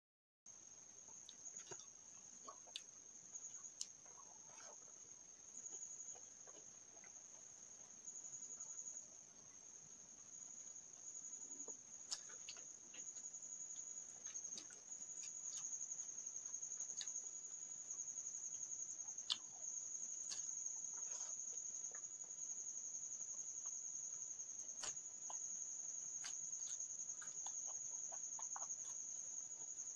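Steady high-pitched insect trill, like a cricket, growing a little louder after about fifteen seconds. Scattered soft clicks and smacks of someone eating with the hand from a plate.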